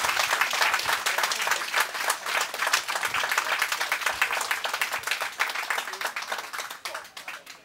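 A crowd applauding, many hands clapping, dying away over the last two seconds or so.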